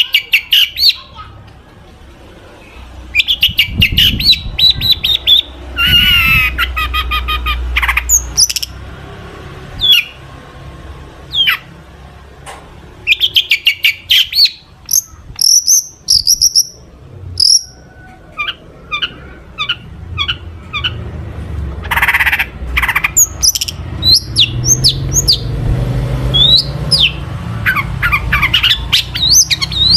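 Long-tailed shrike (cendet) singing a fast, varied song of sharp chirps, rattling click series and quick whistled notes in bouts, with phrases mimicked from other birds.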